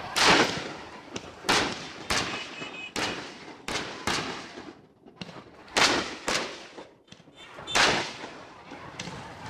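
Fireworks going off in a string of about nine irregular loud bangs, each trailing off in a short echo.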